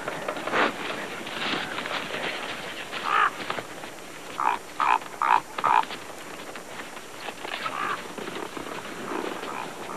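Raven croaking, about five short, harsh calls between roughly 3 and 6 seconds in, over crunching and shuffling in snow as a carcass is dragged.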